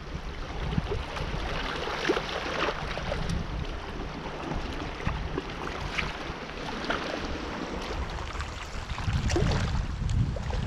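Black Sea waves washing and splashing at the shore, with many small splashes, under a low rumble of wind on the microphone that grows louder near the end.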